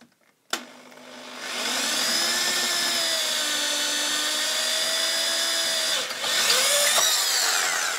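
Corded electric drill drilling out a fan rivet with a bit a little smaller than the rivet. The motor spins up about a second in and runs with a steady whine. It eases off briefly near six seconds, runs harder again, then winds down with falling pitch near the end.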